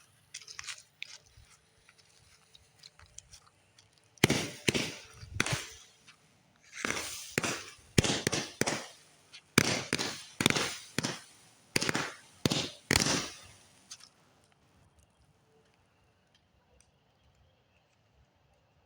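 Fireworks going off: a string of about fifteen sharp bangs, each with a short fading tail, coming roughly one or two a second for about ten seconds before stopping.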